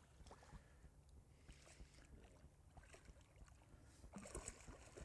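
Near silence: a hooked salmon splashing faintly at the river's surface, a little more about four seconds in, over a low wind rumble on the microphone.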